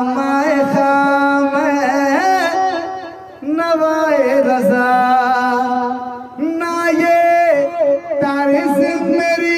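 A man singing a devotional Islamic kalam (naat) in long, ornamented held phrases, with two brief pauses about a third and two-thirds of the way through.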